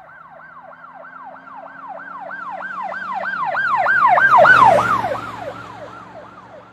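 Emergency vehicle siren in a fast yelp, about three and a half sweeps a second. It grows louder, passes with a drop in pitch and a rush of road noise about four and a half seconds in, then fades away.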